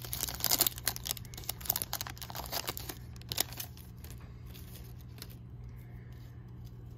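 Foil trading-card pack wrapper crinkling and tearing as the pack is opened, with dense crackling for the first three seconds or so, then softer scattered rustles as the cards are handled.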